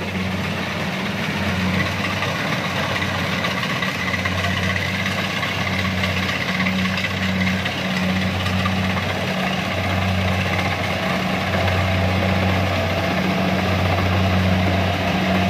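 Kubota DC-70 combine harvester running steadily, its diesel engine working under load as the machine cuts standing rice, the sound growing slowly louder as it comes closer.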